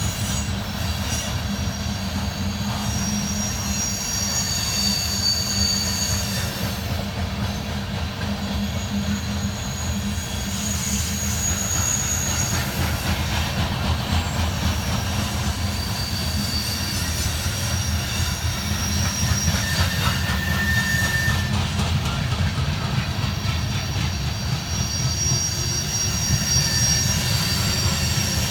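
Loaded coal train rolling past on steel wheels: a steady low rumble, with thin high-pitched wheel squeals that come and go every few seconds. It grows a little louder in the second half.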